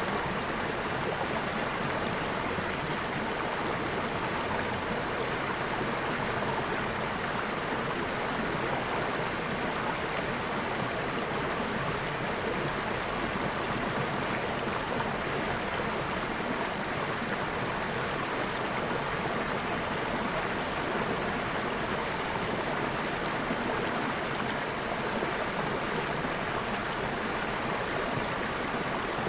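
Water flowing steadily in a stream, a continuous even rushing and babbling.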